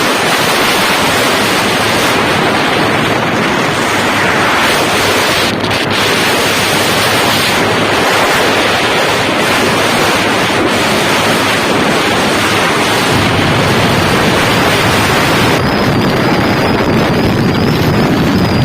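Heavy wind buffeting the microphone of a moving motorcycle, a steady loud rush with the engine and road noise buried under it. A faint high whine comes in near the end.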